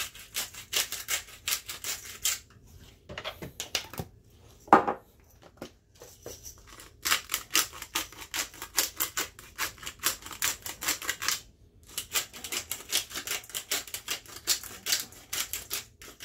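Hand-twisted salt and pepper grinder mills grinding salt crystals and peppercorns: rapid crunchy clicking in three runs, with a short pause between them. A single knock comes about five seconds in.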